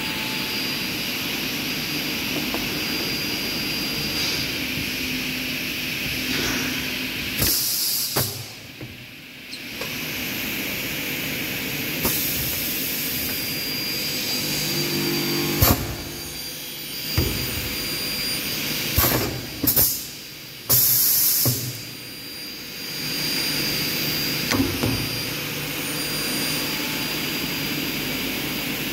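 Aluminium window-frame corner crimping press running with a steady machine noise. It is broken by a few short, sharp hissing blasts, one about a quarter of the way in and two close together around two-thirds of the way through, with a sharp click in between.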